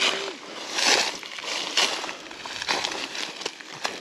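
Footsteps crunching on dry leaf litter and brushing through grass and scrub, about one step a second.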